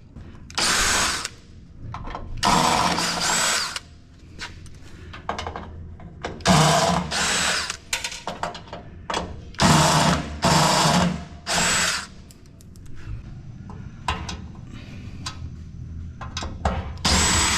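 Power drill/driver whirring in short runs of about a second, several times over, as it spins nuts off the rack hardware.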